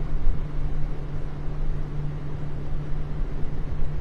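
Boat motor running steadily while under way, a constant low hum, with wind rumbling on the microphone.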